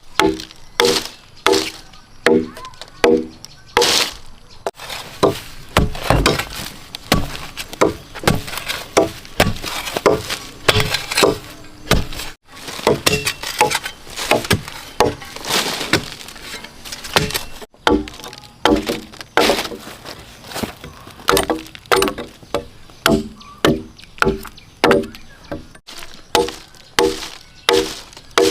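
Wood being struck over and over with a hand tool, about two blows a second, several of them ringing briefly, as timber or bamboo is chopped or hammered for building a kitchen.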